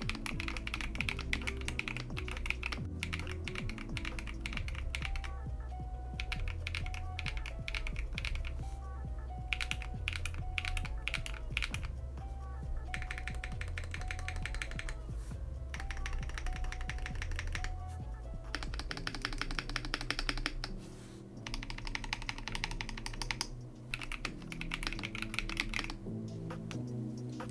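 Typing on a stock, unmodded Epomaker TK68 stacked-acrylic, gasket-mounted mechanical keyboard: fast runs of keystroke clacks broken by short pauses.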